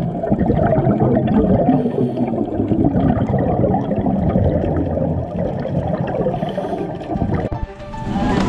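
Muffled underwater water noise with gurgling bubbles, as picked up by an underwater camera, dropping away near the end.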